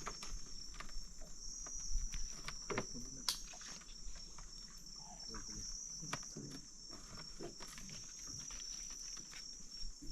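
A chorus of insects chirring steadily in one high band, with scattered soft clicks and knocks over it.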